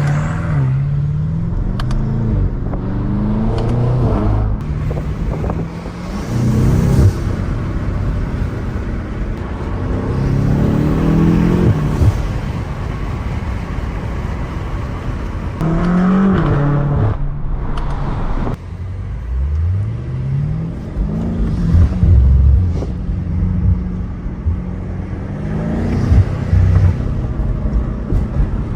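BMW M8 Competition's twin-turbo 4.4-litre V8 accelerating in several hard pulls, the engine note rising in pitch through each gear and dropping back at the shifts, over steady road and tyre noise.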